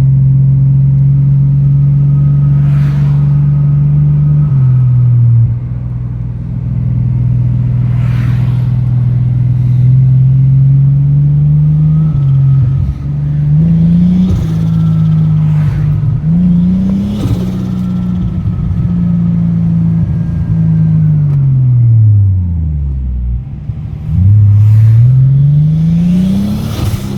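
Toyota Supra turbo engine running through an HKS straight-through exhaust while driving, its pitch climbing under acceleration and dropping back at gear changes. It falls low about 22 seconds in as the car slows, then climbs again. The owner says the engine has a misfire on one cylinder.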